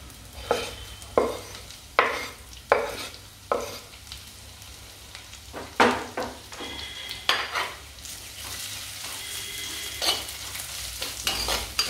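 Chopped shallots frying in hot coconut oil in a clay pot, sizzling while a spoon stirs them, knocking and scraping against the pot. The knocks come about once a second at first, and the sizzle turns to a steadier hiss in the second half.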